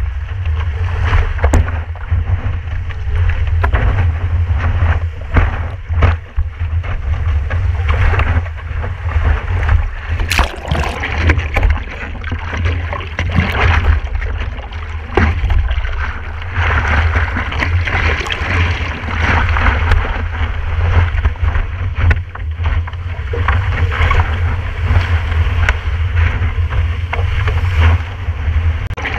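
Water rushing and spraying against a stand-up paddleboard as it rides a wave, with a steady low rumble of wind buffeting a microphone mounted on the board and scattered crackles of spray.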